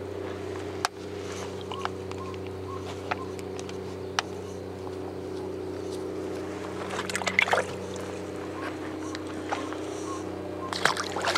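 A boat engine running steadily with a low, even hum. A few light clicks and knocks sound over it.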